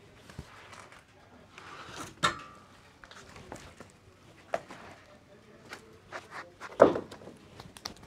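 Pine slab dragged off a sawmill's steel bed: scattered scrapes and knocks, a sharp clank with a brief ring about two seconds in, and a heavier thump near the end as the slab comes down onto the ground.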